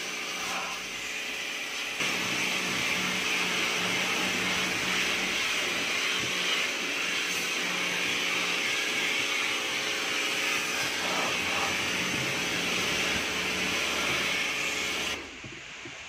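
Pump-fed jet of water spraying into a washing machine's plastic tub, rinsing out loosened grime: a steady hiss over a steady motor hum. It gets louder about two seconds in and cuts off about a second before the end.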